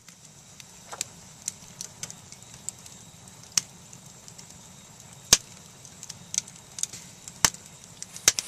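Wood fire crackling: irregular sharp pops and snaps over a soft steady hiss, with a few pops bunched together near the end.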